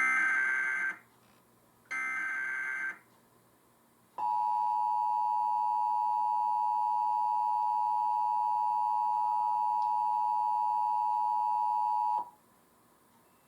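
Emergency Alert System test tones: the last two of the three digital SAME header bursts, each about a second long, then the two-tone EAS attention signal holding steady for about eight seconds before cutting off.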